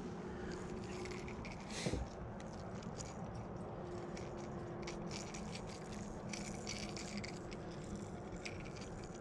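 Light clicking and rattling of a plastic topwater lure and its hooks as they are worked free of a fish's mouth by hand, with one sharper knock about two seconds in.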